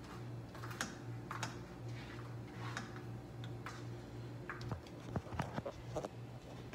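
A phone camera being handled and picked up, with light scattered clicks and a few soft knocks that come thicker in the second half. A steady low hum runs underneath.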